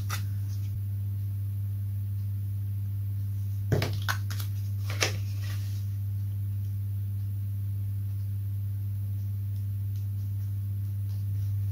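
A steady low hum, with a few light clicks and taps about four and five seconds in as foam model-plane parts are handled and fitted together.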